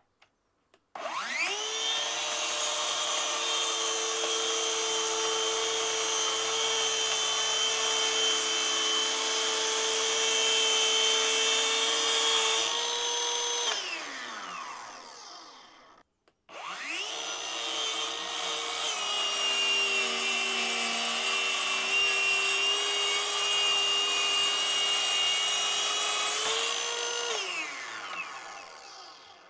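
Ryobi PTS01 18V brushless cordless track saw cutting plywood, twice. Each time it spins up, runs steadily through the cut for about eleven seconds, then winds down.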